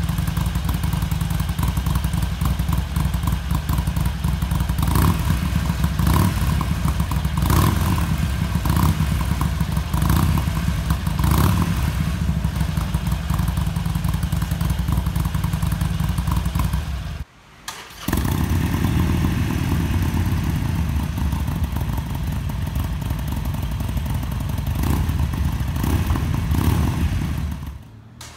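Harley-Davidson Forty-Eight's air-cooled V-twin running through Screamin' Eagle mufflers, idling steadily with several short louder pulses in the first half. The sound breaks off briefly about two-thirds of the way through, then resumes.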